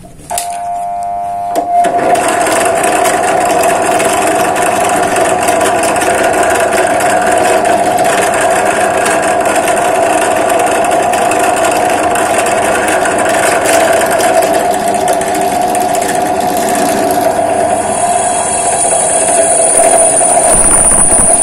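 Bench drill press motor switching on and spinning up, then running steadily while a twist drill bores into a 40x60 mm square steel hollow tube. A high, steady squeal joins in near the end.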